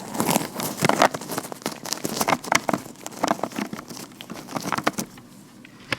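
Vinyl-latex gloved hands rubbing and tapping close to the microphone: a quick, irregular run of crinkly glove sounds and small taps, sparser and quieter after about five seconds.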